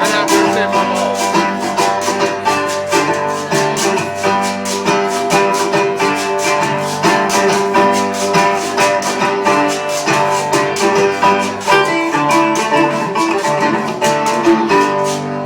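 Acoustic guitar strummed in a steady chordal rhythm through an instrumental passage of a reggae song, with no singing. The playing dies away just before the end.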